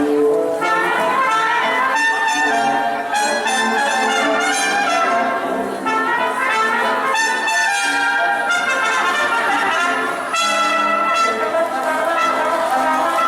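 Upbeat brass-band music with trumpets and trombones, played steadily over the show's sound system.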